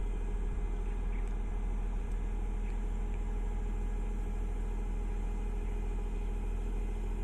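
Heavy diesel excavator engine running steadily with a low, even drone.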